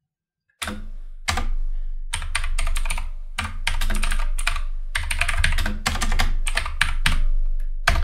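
Typing on a computer keyboard: a fast, uneven run of key clicks that starts about half a second in.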